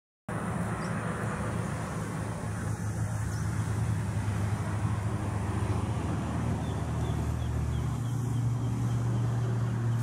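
Steady low rumble of a motor vehicle engine close by, its low pitch shifting slightly about eight seconds in, with a few faint high chirps over it.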